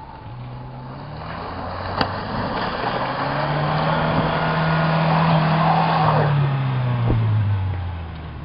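Pickup truck engine revving hard as the truck ploughs through deep snow and slush, its wheels churning and spraying snow. The revs climb a few seconds in, hold, and drop back near the end, with a sharp knock about two seconds in.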